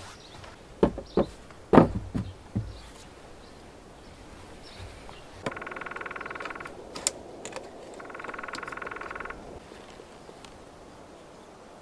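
Wooden poles knocking together as they are moved and set down, a few sharp clunks in the first seconds. Later come two even rasping scrapes, each over a second long, as a knife works around the rim of a plastic varnish tub to open it.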